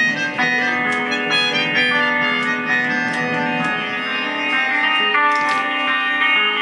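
Melodica played live, holding reedy sustained notes and changing to new notes every second or so, with faint light ticks behind it.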